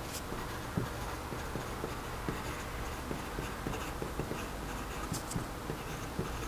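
Fountain pen nib scratching on grid paper as words are handwritten, with many small irregular ticks from the pen strokes.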